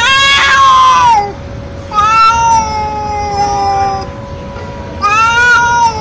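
Young male cat meowing loudly in three long, drawn-out calls: the first rises then falls, the second is the longest and slowly sinks in pitch, and the third comes about five seconds in.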